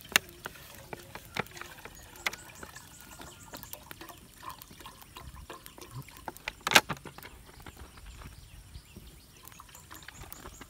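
A pot bubbling at the boil over a wood fire, with scattered sharp clicks and knocks; the loudest knock comes about two-thirds of the way through.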